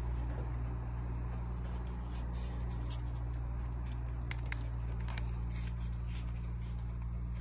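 Fujimo SOHO Deluxe massage chair running its rolling massage with seat vibration: a steady low motor hum, with a few light clicks near the middle.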